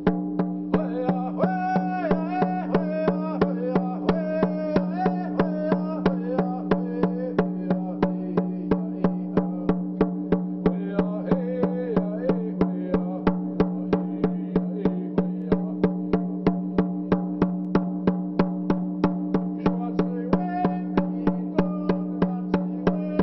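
Hand drum struck with a beater at a steady, even beat, with a man singing a thank-you song over it in stretches, the voice dropping out between phrases while the drumming carries on.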